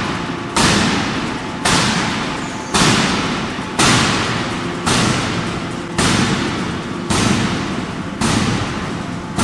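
15-ton bridge-type free (open-die) forging hammer striking a red-hot billet in a steady rhythm, about one heavy blow a second, each blow ringing and echoing away before the next.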